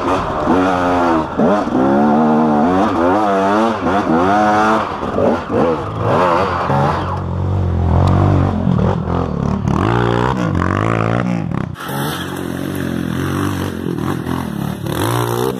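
KTM EXC two-stroke dirt bike engine revving up and down over and over as it is ridden along a trail, on and off the throttle. About twelve seconds in, the sound cuts abruptly to another recording of a dirt bike engine running and revving on a climb.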